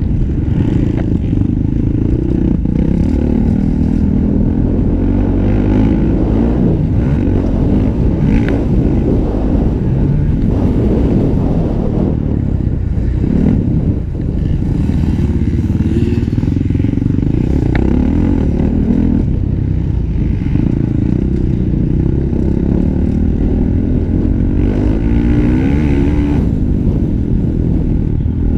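Honda 450 motocross bike's single-cylinder four-stroke engine being ridden hard, revving up and down repeatedly as the throttle is worked, loud throughout, with occasional sharp clicks and clatter.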